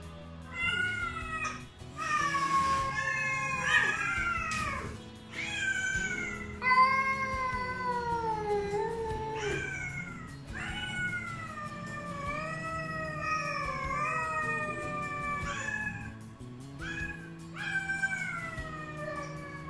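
A family of feral cats, a mother and her two grown kittens, meowing loudly in a near-continuous chorus of long, drawn-out calls. The calls glide and mostly fall in pitch at the end, and some overlap. This is the 'singing' they do only when they know wet food is about to come.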